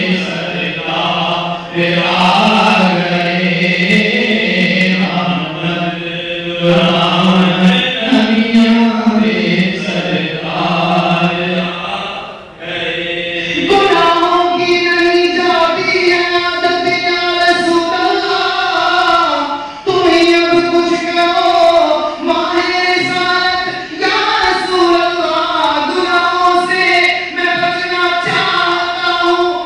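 A group of men's voices singing a devotional Islamic chant together, in long held notes. About halfway through the singing moves up to a higher pitch.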